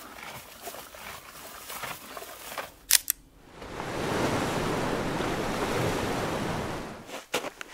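Mechanical clicks of a Yashica-D twin-lens reflex film camera: two sharp clicks about three seconds in and a few more near the end. Between them an ocean wave washes in, swelling and fading over about three seconds.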